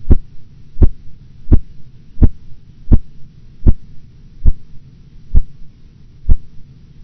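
Phase III–IV Korotkoff sounds heard through a stethoscope over the brachial artery as the blood-pressure cuff deflates. They come as nine muted, regular taps a little under a second apart, over a steady low hum, as the cuff pressure nears the diastolic pressure.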